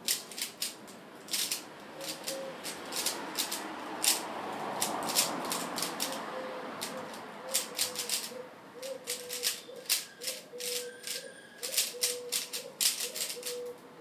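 3x3 Rubik's cube being turned fast in a timed speedsolve: quick irregular runs of plastic clicks and clacks as the layers snap round, with fewer turns for a couple of seconds around the middle.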